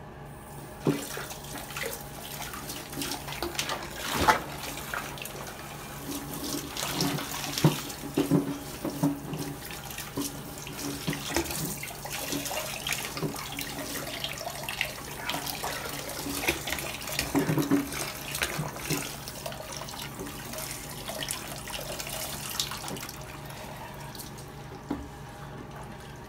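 Handheld shower running, spraying water onto a wet beagle in a plastic tub, with splashing and occasional knocks. The water starts about a second in and dies away shortly before the end.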